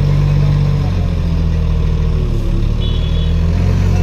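A motor vehicle's engine running steadily, its low hum shifting in pitch about a second in.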